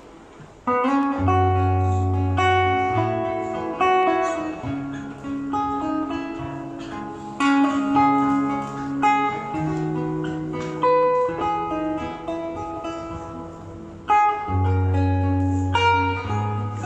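Instrumental introduction to a song, led by guitar with held low bass notes; the music comes in sharply just under a second in.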